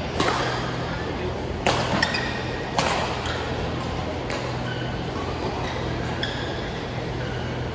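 Badminton rally: rackets striking the shuttlecock in sharp cracks, several in the first three seconds, with shoes squeaking briefly on the court floor now and then over a steady low hum.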